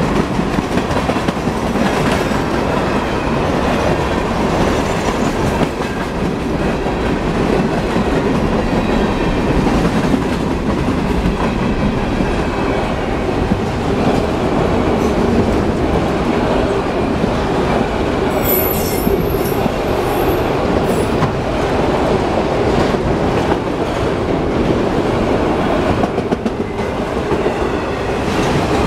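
Freight train's flatcars and autorack cars rolling past, a steady noise of steel wheels on the rails. A brief high-pitched wheel squeal comes a little past the middle.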